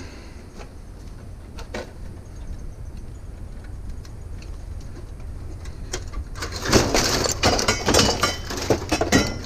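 Hard items, such as tools and scrap metal from a discarded trunk, being handled with a few scattered knocks, then a burst of clattering and banging near the end, over a steady low rumble.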